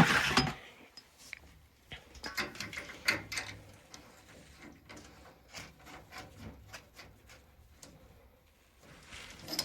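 Hands working on boiler piping and parts: a scattering of light clicks and small knocks, the loudest in the first half-second and around three seconds in.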